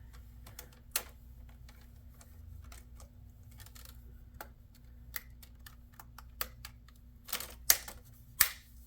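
Alienware laptop's plastic screen bezel being pressed onto the lid: scattered sharp plastic clicks, with a few louder snaps close together near the end as its clips catch, over a faint steady hum.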